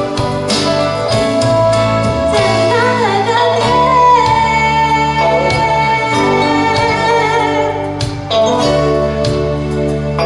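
A woman singing with instrumental accompaniment, holding long notes.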